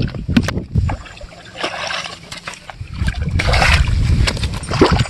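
River water splashing and sloshing in two spells, over a constant low rumble with scattered clicks.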